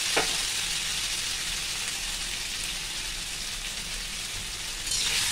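Cut pieces of steamed chana-dal bhakose sizzling in hot spiced oil in an iron kadhai, a steady frying hiss. It eases off a little through the middle and grows louder again near the end.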